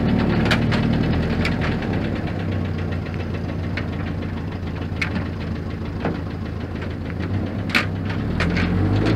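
1950 Land Rover Series 1's four-cylinder petrol engine running at low revs as the vehicle crawls over a rough rocky track, its note dropping off in the middle and picking up again near the end. A few sharp knocks sound over it.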